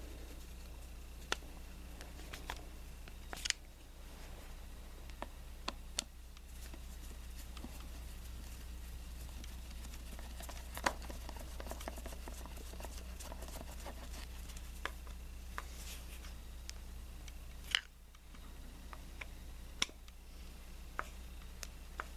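Scattered small clicks and taps of hand work on an engine, parts and tools being handled and fitted, over a steady low hum.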